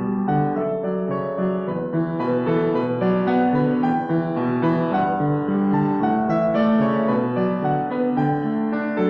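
Solo piano being played: a continuous flow of notes and chords with no pause.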